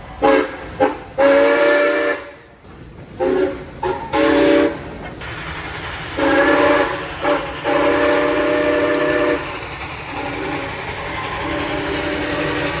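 A heritage train sounding a multi-note chime in a series of short and long blasts, several short toots then long ones, with a steady hiss between them. The last two blasts, near the end, are fainter.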